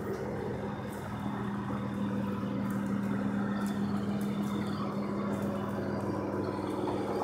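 1994 Ford F-150's 4.9-litre (300 cubic inch) straight-six engine idling with a steady, even hum; it sounds really good.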